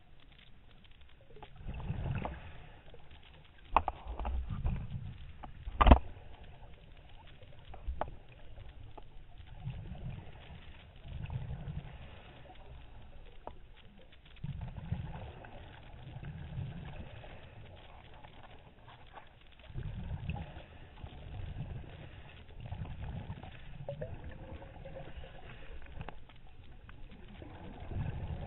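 Muffled underwater noise picked up by a camera in its housing: low rumbles that come and go every couple of seconds, with sharp knocks about four and six seconds in, the second one the loudest.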